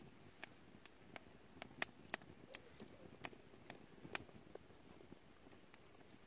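Sparse drips of rainwater ticking, sharp and irregular, about two a second, over a faint background hiss.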